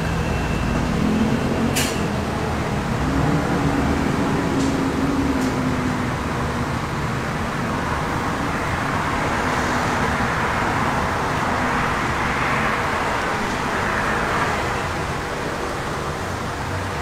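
Steady hum and hiss of a street-food kitchen working at a flat-top griddle, with one sharp click about two seconds in and the hiss swelling somewhat in the middle.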